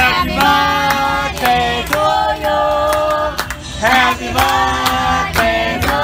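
Music with a singer holding long, wavering notes over a steady beat.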